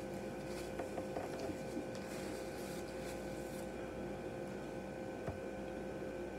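Quiet room tone with a steady electrical hum, with soft rustling of a paper napkin and a few faint clicks in the first few seconds, and one sharper click about five seconds in.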